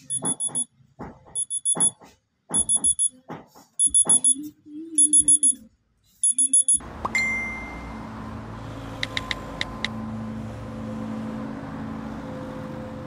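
Smartphone alarm ringing: repeated groups of quick, high electronic beeps, about one group a second. About seven seconds in it cuts off, leaving a steady low hum with a single short chime and a few faint ticks.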